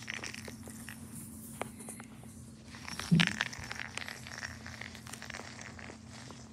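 A cat pawing, clutching and biting at a ball of yarn on a carpet: soft scratchy rustling and small clicks of claws and fur against the yarn, with one brief louder bump about three seconds in.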